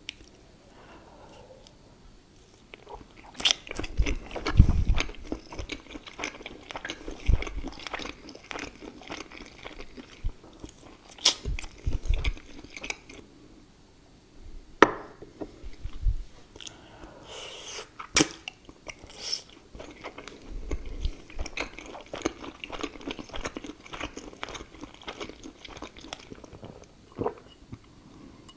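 Close-miked chewing and biting of food by one person, starting about three seconds in and going on with short pauses.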